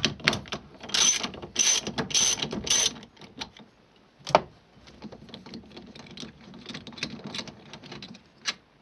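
Socket ratchet undoing the 15mm steering wheel securing nut: four loud bursts of ratchet clicking on the back-strokes, a single sharp click a little after four seconds, then lighter, quicker clicking as the loosened nut spins off.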